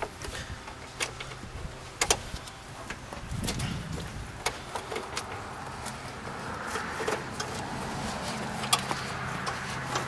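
Handling noise from a hood release cable being fed through the engine bay by gloved hands: scattered light clicks and taps, with rustling and scraping that grows louder in the second half. A steady low hum runs underneath.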